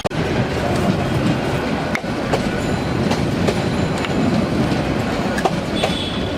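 Train passing close by: a loud, steady rumble with irregular sharp clacks of the wheels.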